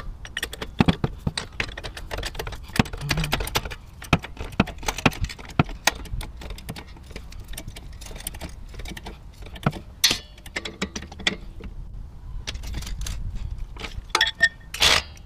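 Hydraulic floor jack being pumped by its long handle, giving irregular metallic clicks and clanks. Near the end a steel jack stand is set under the car with a louder metal knock and rattle.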